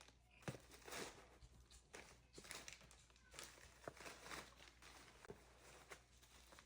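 Faint rustling of packing material with scattered light clicks and taps as a fragile item is unwrapped by hand.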